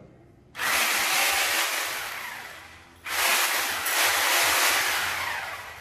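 Handheld electric angle grinder switched on twice, giving a loud hissing whir each time that starts suddenly and dies away over about two seconds as it winds down.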